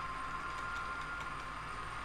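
HO scale model grain hoppers rolling along the layout track: a steady rolling whine with faint clicks of the wheels over the rail joints.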